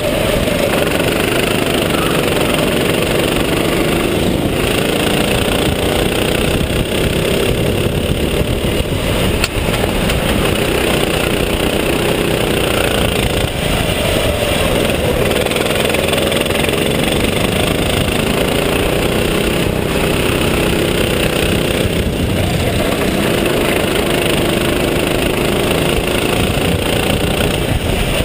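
Racing kart's engine running hard, its pitch rising and falling as it accelerates and lifts through the corners, under a heavy rush of wind noise.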